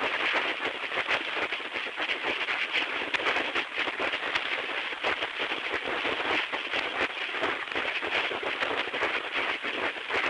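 Shortwave radio static: a staticky hiss held to the voice band and laced with crackles. Its loudness rises and falls in a cadence that resembles speech, though it sounds like white noise and no words come through.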